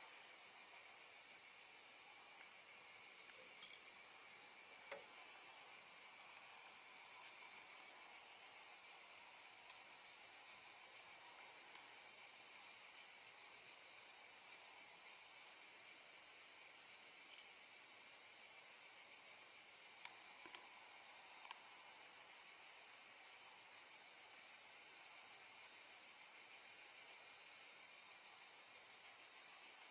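Crickets chirping in a steady, high, continuous trill, with a couple of faint clicks.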